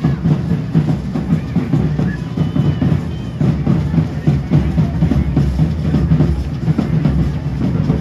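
Large double-headed bass drum beaten with a stick in a quick, steady rhythm for a traditional matachines dance.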